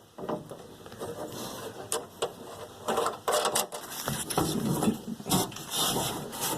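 Socket ratchet clicking in irregular runs, working nuts onto the new exterior door handle inside the car door.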